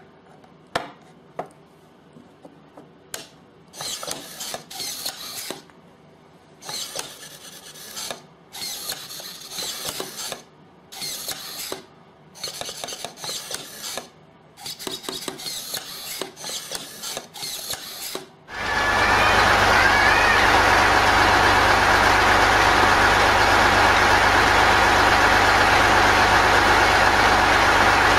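Wood rubbing and scraping on wood in short rasping strokes, each up to about a second long with pauses between. About two-thirds of the way through, a much louder truck-driven rotating log splitter starts up and keeps running steadily with an even hum.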